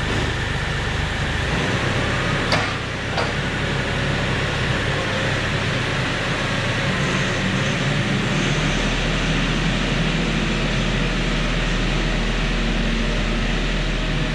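Kioti DK5310 hydrostatic tractor's diesel engine running steadily as the tractor drives off. Two sharp clanks about two and a half and three seconds in.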